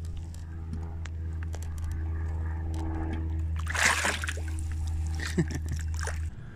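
A brief splash of water about four seconds in, over a steady low hum and scattered small clicks.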